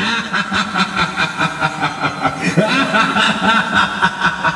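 A witch's cackling laugh, a rapid run of evenly pulsed high 'he-he-he' notes at about four to five a second.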